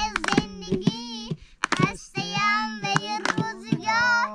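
Background music: a high voice singing a wavering melody in short phrases over a steady held low note.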